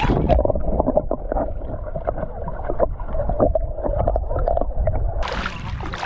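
A camera microphone held under lake water: muffled gurgling and knocking with all the treble cut off. About five seconds in it breaks the surface and the open-air sound of sloshing water suddenly returns.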